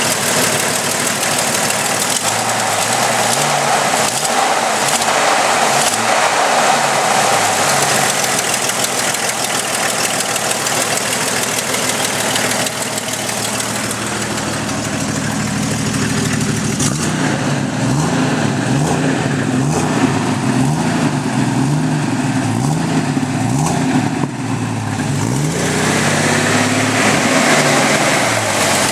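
1997 Jeep Cherokee's 4.0-litre straight-six running with a tick from the back of the engine, while the engine speed rises and falls several times in the second half. The tick is an exhaust leak where the header's intake/exhaust gasket has blown apart.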